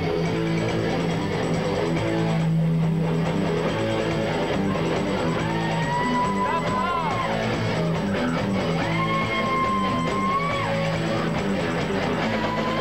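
Rock band playing live, guitar to the fore over shifting low notes. A high melody note is held twice, about five and a half and nine seconds in, each bending off at its end.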